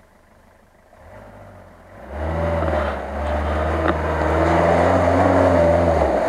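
Off-road 4x4's engine pulling under load as it drives through water-filled mud ruts, with splashing of water and mud. The engine comes in about a second in and is loud and steady by two seconds.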